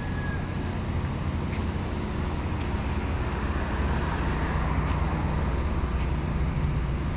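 Street traffic noise: a steady low rumble with a vehicle going by, loudest about halfway through.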